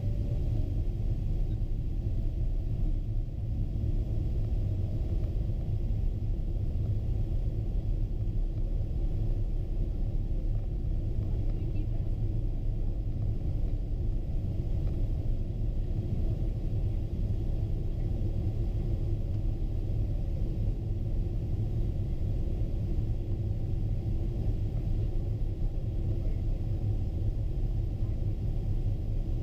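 Boeing 777-200 cabin noise in flight: a steady low rumble of engines and airflow heard from inside the passenger cabin, unchanging throughout.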